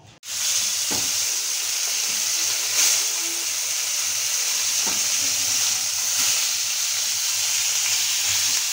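Spice-marinated pieces of shing (stinging catfish) frying in hot oil in a pan: a steady sizzling hiss with a few louder pops.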